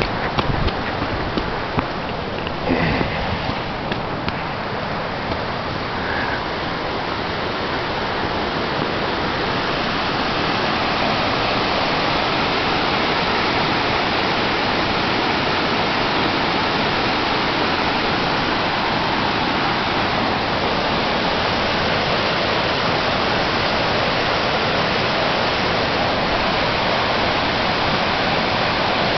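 Steady rushing of Lower Hungarian Falls, a waterfall pouring white water through a snowy gorge, growing louder over the first ten seconds and then holding level. A few short knocks come in the first three seconds.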